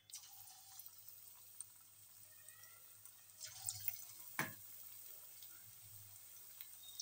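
Onion pakoras deep-frying in hot oil in a kadhai: a low, steady sizzle that starts as the batter goes in, with a few sharper crackles a little past the middle.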